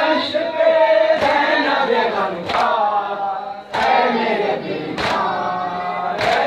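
A noha, the Shia Muharram lament, chanted by a group of men in chorus, led on a microphone. A sharp chest-beating (matam) stroke keeps the beat about every second and a quarter.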